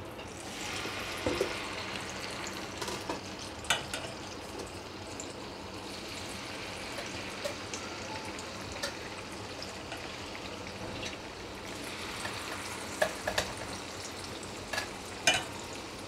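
Malpua batter sizzling as it fries in shallow hot oil in a flat non-stick pan. The hiss swells just after the start as a spoonful of batter goes in, then holds steady, with a few sharp clicks now and then.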